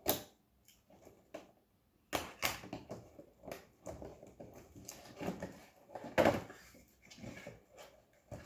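Scissors snipping and cardboard and plastic packaging being handled as a toy model box is cut open: irregular clicks, snips and rustles, with a louder knock a little after six seconds.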